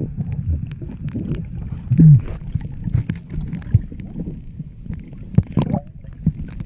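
River water sloshing and splashing around people wading, with a steady low rumble and scattered small knocks of handling noise on the microphone.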